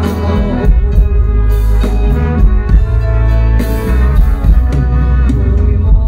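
Live band music over a PA system: a drum kit keeping a steady beat under held instrument notes.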